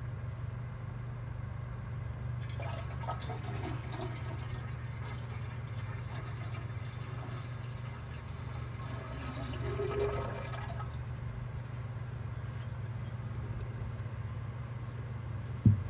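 Ferrous sulfate (copperas) solution poured in a thin stream into a large glass beaker of yellow gold solution to precipitate the gold, splashing from about two and a half seconds in until about eleven seconds. A steady low hum runs underneath, and there is a single sharp knock near the end.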